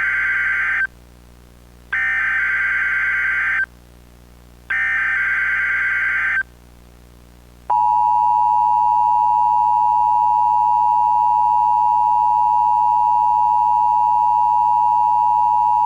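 Emergency Alert System SAME header: three bursts of screeching digital data tones, each about two seconds long, the first already under way. About a second after the third burst, the steady two-tone EAS attention signal starts and holds for about eight seconds.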